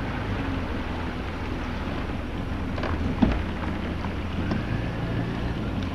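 Small boat's motor running steadily while underway, with water and wind noise over the microphone. A single sharp knock about three seconds in.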